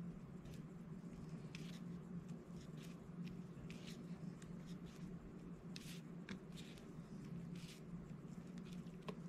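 Faint, irregular light clicks and taps of a diamond-painting pen picking up resin drills and pressing them onto the sticky canvas, several a second at times, over a steady low hum.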